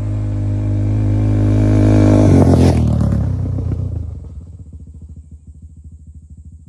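An engine held at steady high revs, then let off about two and a half seconds in, its note falling into a slow, even, lumpy idle that gets quieter.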